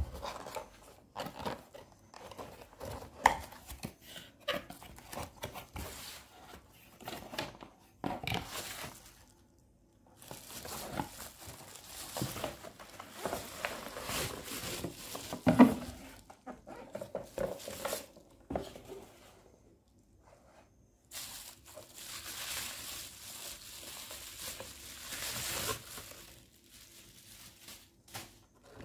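A cardboard box and its packaging being handled and opened by hand: irregular rustling, scraping and crinkling with small taps, and a sharp knock about halfway through as the contents are pulled out.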